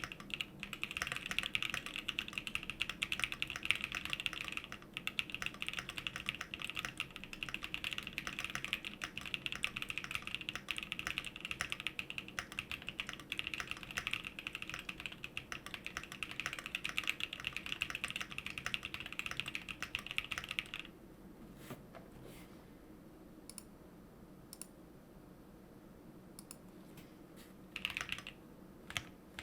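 Fox Labs Leaf 65 custom mechanical keyboard (aluminium plate, full foam and PE foam mod, Gazzew Boba LT linear switches) being typed on fast and continuously. The typing stops about two-thirds of the way through, leaving a few single key presses and a short flurry of keystrokes near the end.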